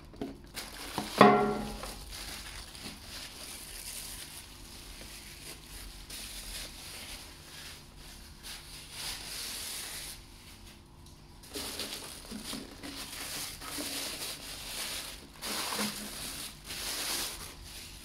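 Clear plastic bag crinkling and rustling as it is pulled off a new capsule coffee machine, with a loud thump about a second in and a short lull near the middle.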